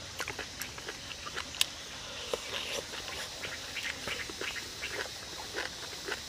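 A person eating with chopsticks: mouth noises of chewing, a string of short irregular smacks and clicks, with one sharper click about a second and a half in.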